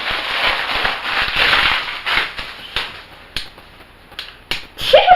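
Crinkling and rustling of plastic packaging as toys are unwrapped, then a few separate sharp clicks or taps.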